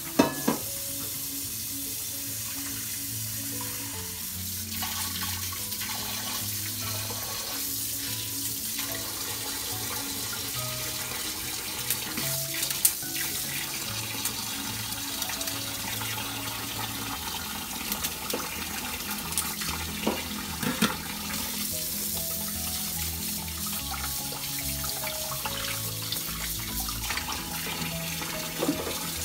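Kitchen tap running steadily into a stainless steel sink, the stream splashing over crabs and a pot as they are rinsed. A few sharp metallic knocks come from the pan and shears, the loudest just after the start. Soft background music plays underneath.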